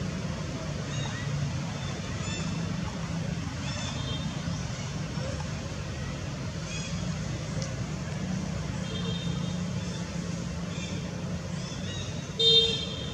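A steady low drone, like a distant engine, with faint scattered high chirps of animal calls. One louder, short, shrill call comes near the end.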